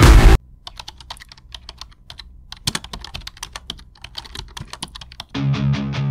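A brief, very loud burst of noise, then computer keyboard typing: quick, irregular key clicks for about five seconds. Music comes back in near the end.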